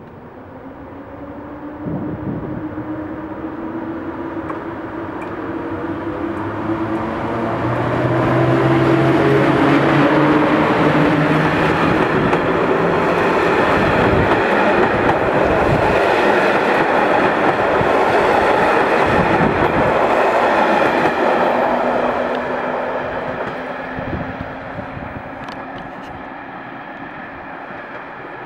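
PKP Intercity EU07 electric locomotive hauling a TLK passenger train through a station: it approaches with a rising rumble of wheels on rail and a faint hum. The coaches then run past loudly for over ten seconds, and the sound fades as the train recedes.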